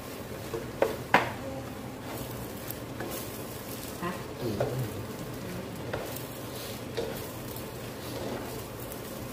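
Wooden spatula stirring and tossing rice noodles with meat and vegetables in a frying pan over a faint sizzle, with a couple of sharp knocks against the pan about a second in and lighter clacks later on.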